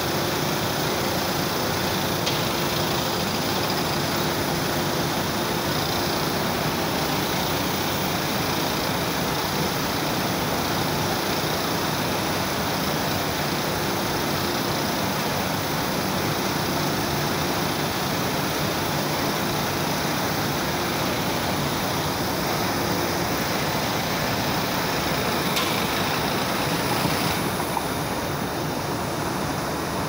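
Blast furnace being tapped: a steady, even rushing noise of molten iron, gas and flame pouring from the taphole into the cast house.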